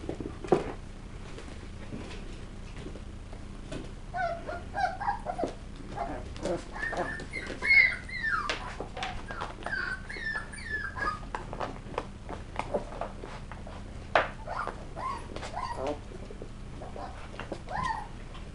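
West Highland White Terrier puppies at play, giving many short high-pitched yips and whines that come thickest between about four and twelve seconds in. Sharp clicks and a couple of loud knocks run through it.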